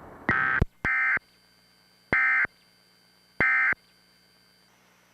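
Emergency Alert System end-of-message code: four short bursts of warbling digital data tones, each about a third of a second long, with pauses between them. They mark the end of the monthly test message.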